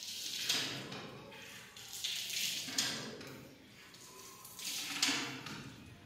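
Peafowl's fanned train and wings shaking in courtship display, giving a rustling swish that swells and fades about three times.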